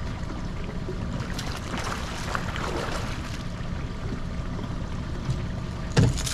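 Boat engine idling steadily out of gear, a low even rumble, with water sounds around the hull, and a sharp knock near the end.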